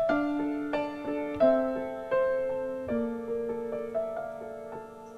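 Piano accompaniment playing a slow introduction: chords and melody notes, each struck and fading, ending on a held chord that dies away near the end.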